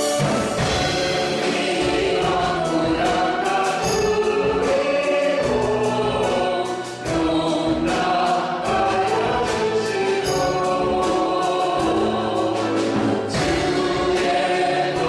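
Church praise team singing a worship song in several voices over instrumental accompaniment with a steady beat.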